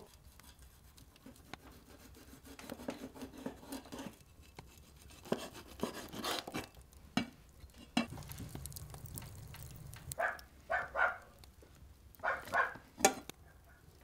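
A cat eating from a metal bowl, then a cleaver chopping trout on a wooden cutting board. The chopping is a series of short sharp knocks in the second half, the loudest near the end.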